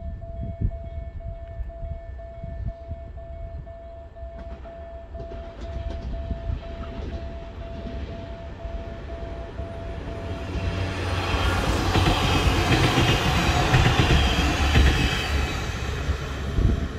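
Pesa 730ML diesel multiple unit passing a level crossing: its running and wheel noise builds and is loudest from about two-thirds in, then eases near the end. Under it, the crossing's warning signal sounds a steady pulsing tone.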